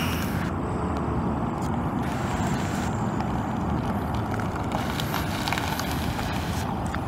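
Ford F-150 pickup's 5.0 L V8 gas engine idling steadily.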